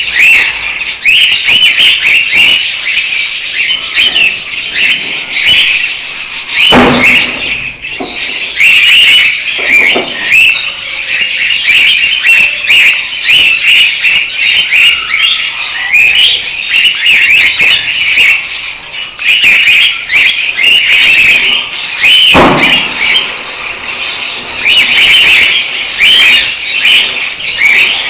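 Budgerigars chirping continuously in dense, overlapping calls, with two dull thumps, one about seven seconds in and one about twenty-two seconds in.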